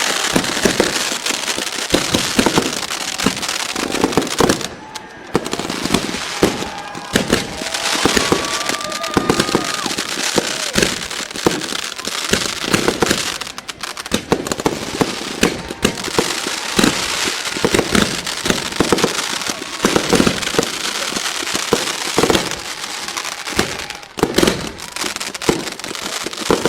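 Pyrotechnic charges of an exploding barbed-wire rig going off in a dense, nearly nonstop chain of firecracker pops and crackles, with brief lulls about five, thirteen and twenty-four seconds in.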